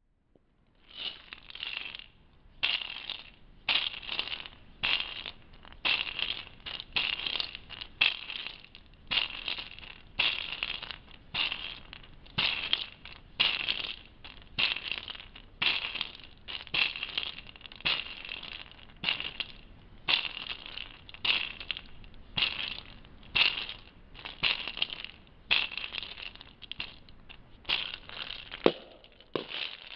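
Asalato (a pair of seed-filled shells on a cord) being spun, each swing a short shaken rattle of seeds, about one and a half a second in a steady rhythm starting about a second in. Near the end come two sharper clacks.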